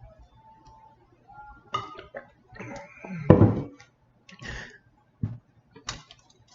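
Close-miked eating sounds from a Chipotle chicken burrito: scattered mouth noises and chewing, with small clicks and knocks from handling the food. About three seconds in there is a louder, low murmur-like sound.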